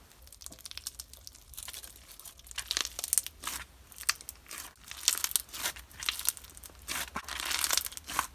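Slushy slime being squished and pulled by hand, giving off irregular crackling, crunching pops that grow busier and louder in the second half.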